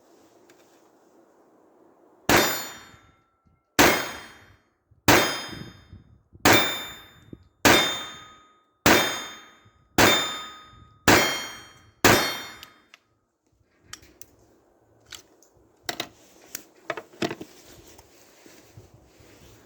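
Taurus PT-22 .22LR pistol firing nine shots, about one every 1.2 seconds, each with a short ringing tail. The shots come one after another with no long gap, so the pistol fired a full load of Geco Semi-Auto rounds. After the last shot there are a few faint clicks.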